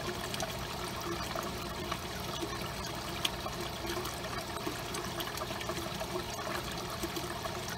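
Steady trickling and flowing water, as of water circulating through an aquaponics system's tank and plumbing.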